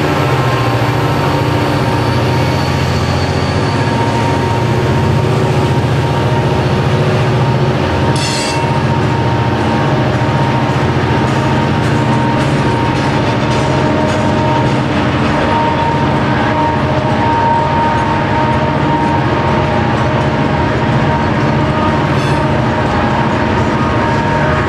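Freight train passing close by: a diesel locomotive at the start, then a long string of hopper cars rolling past with a steady rumble and clatter of steel wheels on rail. A thin steady wheel squeal runs through it, and two sharp clanks come about 8 and 22 seconds in.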